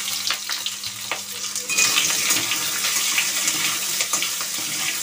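Chopped onions sizzling as they fry in hot oil in a kadai, with a steady hiss and scattered clicks and scrapes of a spatula stirring them against the pan.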